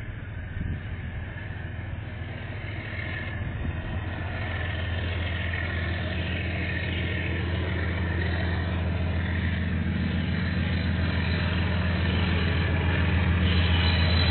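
KiwiRail diesel locomotive approaching: a steady low engine hum that grows gradually louder.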